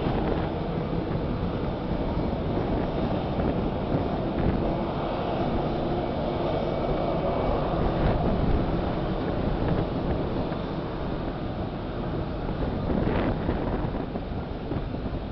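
Wind buffeting the microphone over a steady low rumble from a distant jet airliner's engines at taxi power.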